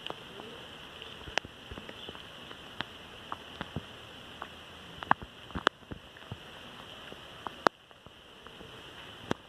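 Steady outdoor ambience: an even hiss with a high, constant band, broken by irregular sharp clicks about once a second.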